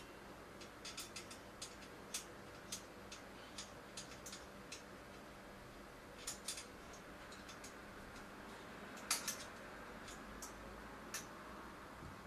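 Irregular light clicks and taps of small metal parts and tools being handled at a bicycle frame, with a cluster of louder clicks about nine seconds in, over a faint steady hum.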